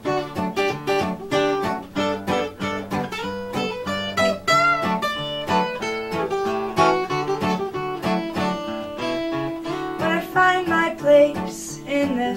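Background music: acoustic guitar picking and strumming in quick notes, with no singing.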